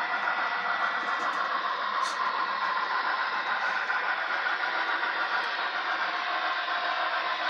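Broadway Limited N-scale Big Boy model steam locomotive running on the layout: a steady hiss with a faint, thin high whine.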